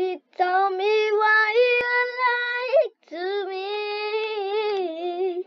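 A girl singing unaccompanied: two long, held phrases with a short break about halfway through.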